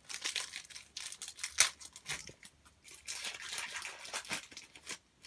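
A trading-card booster pack wrapper being torn open and crinkled by hand: a run of sharp crackling and rustling, with one louder snap about a second and a half in.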